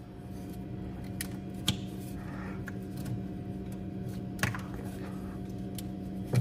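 A few sharp clicks and knocks from the water line hose and plastic door parts being handled and pushed into place, over a steady hum.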